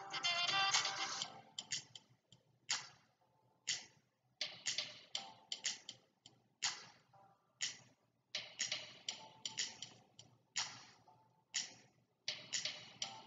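A tail of music fades in the first second or so. Then come sharp ticks and taps at an uneven pace, roughly one to three a second, some with a brief pitched ring.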